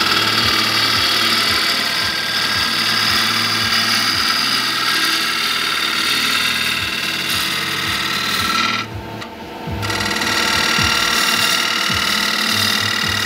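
Geiger G25 wood lathe spinning an applewood blank while a hand-held turning tool cuts into it: a steady, loud scraping hiss of the cut over the lathe's hum. The cutting noise breaks off for about a second around nine seconds in, then resumes.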